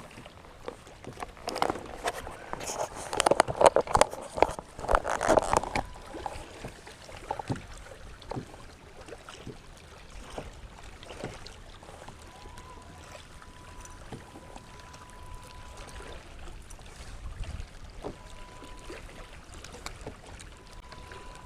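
Water splashing and sharp knocks on a plastic kayak for the first several seconds, then quieter lapping with scattered clicks. A steady high-pitched beep sounds on and off in the second half.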